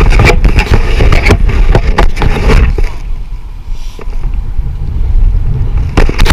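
Wind buffeting the microphone in a heavy low rumble, with a run of knocks and clattering handling noises on the boat over the first three seconds and again near the end.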